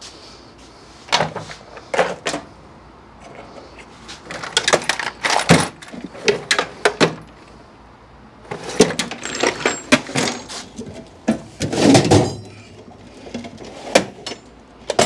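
Metal hand tools clinking and clattering in irregular bursts, with sharp knocks, while the owner works the bolts joining the engine and transmission from under the Jeep.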